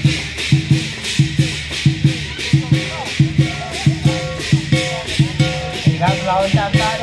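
Loud lion dance music: a steady beat of low drum hits about three a second under cymbal crashes, with a pitched melody line over it that becomes busier near the end.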